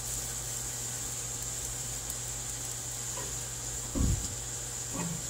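Chicken drumsticks sizzling steadily over hot charcoal on the grill grate. A low thump comes about four seconds in and a lighter one a second later, as metal tongs turn the legs.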